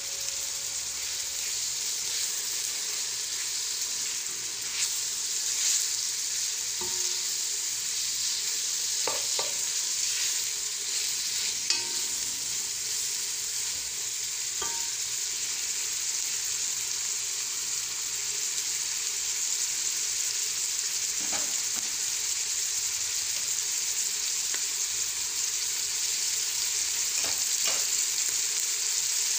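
Chicken pieces with onion frying in oil in a pot, with a steady sizzling hiss. A wooden spoon stirs them and knocks lightly against the pot a few times.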